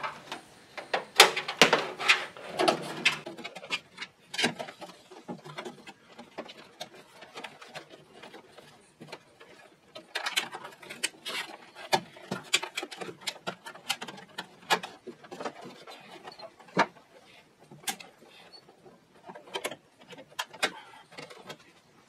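Irregular clicks, taps and rustling as a trunk-release cable and its plastic clips are handled and pushed into place along the underside of a Honda Civic's steel trunk lid.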